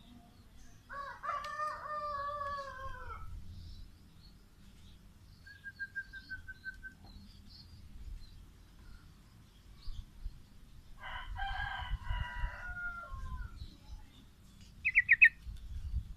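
A rooster crowing twice, each crow a long drawn-out call of about two seconds. Between the crows a small songbird gives a short even trill, and near the end a quick, loud run of four high chirps.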